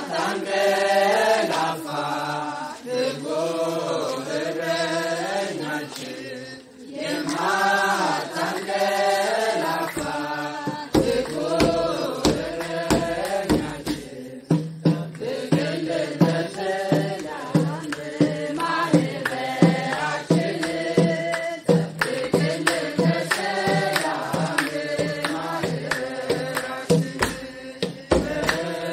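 A group of voices singing an Ethiopian Orthodox hymn together. From about ten seconds in, steady beats of a kebero drum join the singing.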